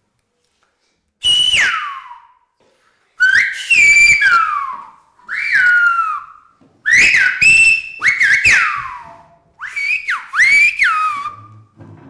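Silbo Gomero, the whistled language of La Gomera, whistled through the fingers: about six loud whistled phrases, each gliding up and down in pitch, with short gaps between them.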